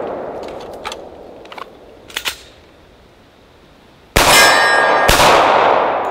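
The echo of a rifle shot fades out, then a few small metallic clicks of the pistol being drawn and its slide racked. Then two .45 ACP pistol shots from a Sig P220 about a second apart, the first followed by a metallic ring.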